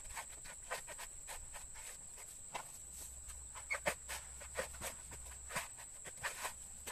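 Coconut husk being pried and torn off on a husking spike: irregular cracking and ripping of the fibrous husk, a few sharp cracks a second.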